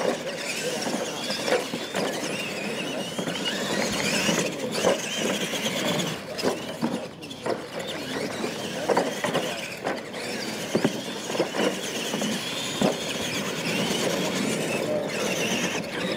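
Electric motors of radio-controlled monster trucks whining, the pitch rising and falling as the throttle changes, with several sharp knocks from the trucks hitting the ramps and landing.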